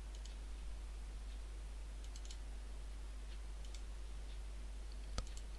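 Computer mouse clicking as folders are opened in a file browser: faint double-clicks near the start and about two seconds in, and a sharper single click just after five seconds, over a steady low hum.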